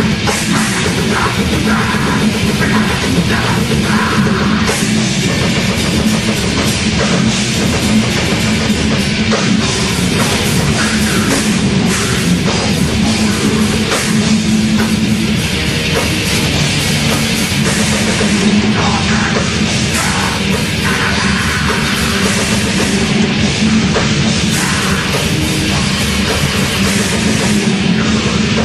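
Heavy metal band playing live: distorted electric guitars, bass and drum kit, loud and unbroken.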